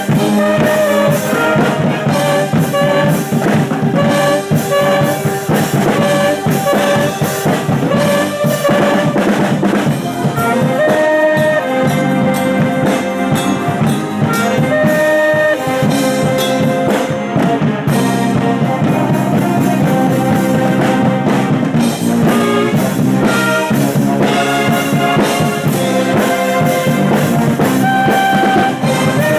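A marching band's brass section, trumpets and trombones, playing loud held and moving notes over a steady drum beat.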